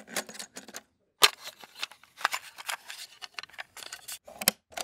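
Cassette tape being swapped in a cassette player: a quick run of plastic and mechanical clicks and rattles. The loudest is a sharp click just over a second in.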